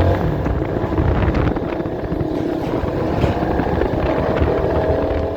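CFMoto NK300's single-cylinder engine running, its pitch rising and falling a little, with wind buffeting the microphone.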